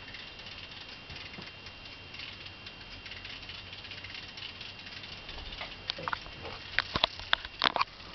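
Faint steady hiss, then over the second half a run of sharp, irregular clicks and rattles of plastic Lego Technic parts being handled.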